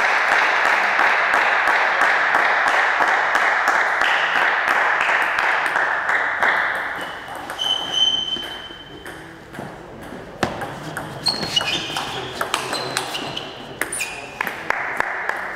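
A loud wash of crowd noise in a sports hall that dies away over the first several seconds. From about ten seconds in comes a table tennis rally: the celluloid ball clicking off bats and table in quick, irregular pings.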